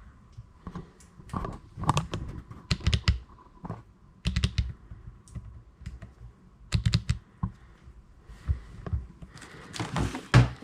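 Footsteps and handling noises in a cluttered room: irregular clusters of sharp clicks and knocks, about one cluster every second or two.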